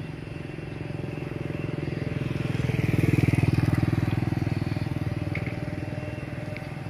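Small motorcycle engine running steadily while riding, with a second motorcycle passing close by, loudest about three seconds in and then fading.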